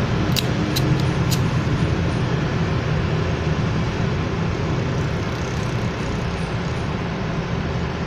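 Three sharp clicks about half a second apart near the start, typical of a cigarette lighter being struck, over a steady rumbling hiss of background noise.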